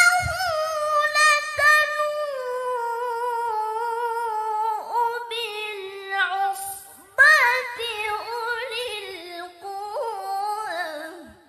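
A woman's voice in melodic Quran recitation (tilawah), sung solo into a microphone. A long, ornamented phrase slowly sinks in pitch, then after a short breath about seven seconds in, a new phrase starts higher and louder and fades out near the end.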